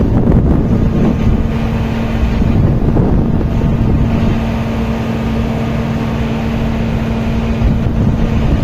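Wind buffeting the microphone over a low rumble, with a steady machinery hum held on one pitch from the ship's deck machinery.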